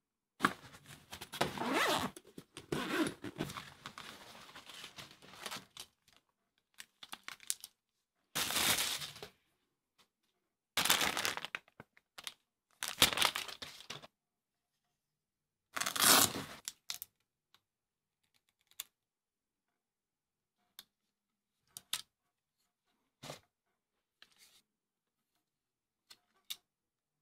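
Zipper on a fabric gimbal carrying bag being unzipped in long rasping pulls, with rustling of the bag being opened, over the first half. After that come scattered single sharp clicks and taps as the plastic gimbal and its parts are picked up and handled.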